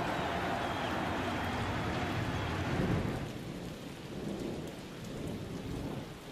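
Rain falling with a rumble of thunder. The thunder peaks about three seconds in, then eases to softer steady rain.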